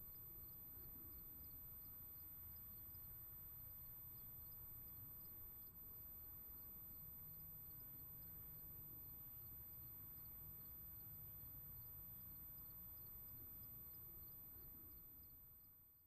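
Faint crickets chirping in a regular pulse over a low, steady background rumble, fading out near the end.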